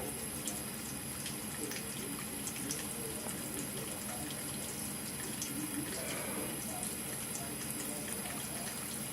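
Water running steadily from a bathroom vanity faucet into the sink basin, with small irregular splashes.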